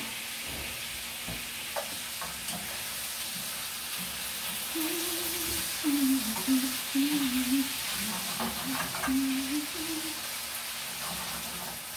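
Chips frying in a hot pan on a stovetop, a steady sizzle, with a few light utensil clicks of stirring. A wavering tone joins in for a few seconds in the middle.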